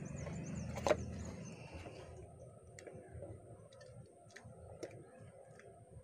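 Small clicks and ticks of a screwdriver working a wire into the terminal screws of a plastic lamp holder, with one sharper click about a second in and fainter scattered ticks after.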